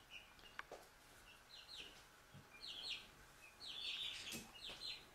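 Four-week-old Dominique chicks peeping: short, high, falling peeps in small quick clusters, coming more often from about two seconds in.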